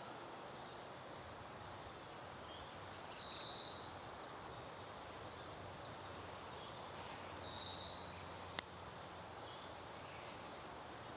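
A small songbird gives two short, high-pitched song phrases about four seconds apart, with a few faint calls between, over a steady outdoor background hiss. A single sharp click comes shortly after the second phrase.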